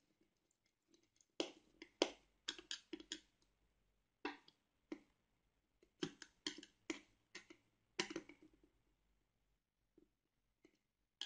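Screwdriver turning a terminal screw on a plastic lamp holder: a string of short, irregular clicks and scrapes as the tip works the screw head.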